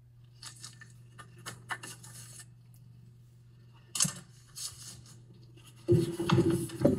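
Light clicks and rustles of hands handling a dishwasher's inner door panel, its plastic detergent dispenser and the insulation around it. One sharper click about four seconds in, over a faint steady low hum.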